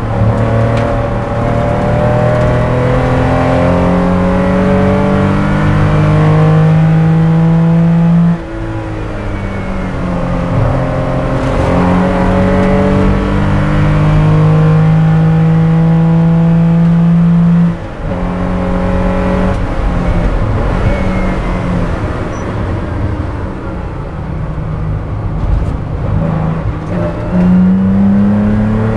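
A 1977 Porsche 911 race car's air-cooled flat-six, heard from inside the cockpit at racing speed. Its pitch climbs under throttle and drops sharply at gear changes about eight and eighteen seconds in. After that the note runs lower and quieter as the car slows for a corner, then jumps up sharply near the end.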